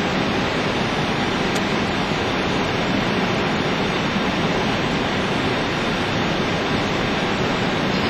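Steady rushing of airflow and engine noise inside the flight deck of an Airbus A320 on final approach, even and unchanging throughout.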